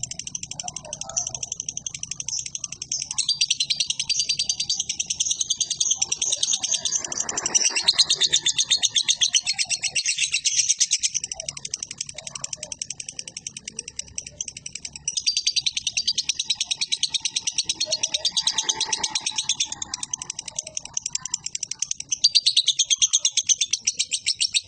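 Lovebird singing its long ngekek song, a very fast high-pitched chattering rattle that runs on, swelling and easing off every few seconds.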